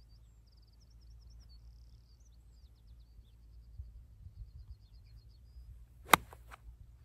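Sand wedge striking a golf ball off turf: one sharp click about six seconds in, from a shot hit a little thin. Before it, small birds trill faintly over a low wind rumble.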